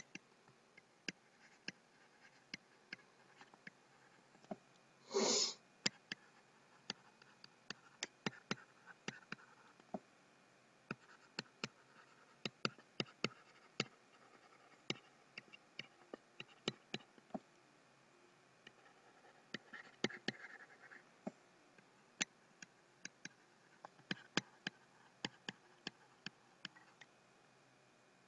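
Faint stylus strokes on a pen tablet during handwriting: light, irregular clicks and taps scattered through, with one louder short noise about five seconds in.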